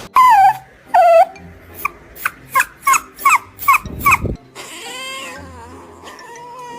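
Dog whining in protest: two drawn-out whines falling in pitch, then a quick run of about eight short high yips. A brief hiss follows about five seconds in.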